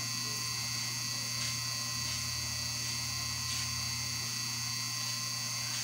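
Steady electrical hum with a high-pitched whine over it, and a few faint ticks.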